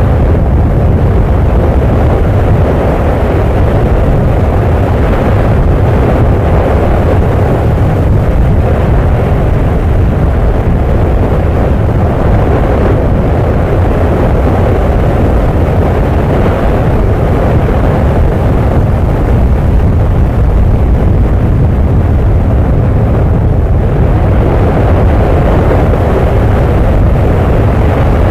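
Volcanic eruption: a loud, steady, deep rumbling roar that swells a little now and then, with no distinct blasts.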